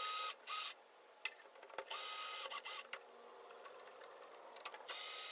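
Small electric screwdriver running in three short bursts, each with a quick second spurt, as it backs out the screws holding a circuit card. It makes a steady high whine.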